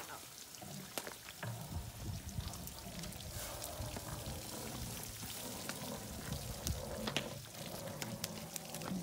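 Water poured from watering cans onto a hot iron tyre on a wooden wheel, hissing and sizzling with scattered crackles as the iron is quenched and shrinks tight onto the wheel.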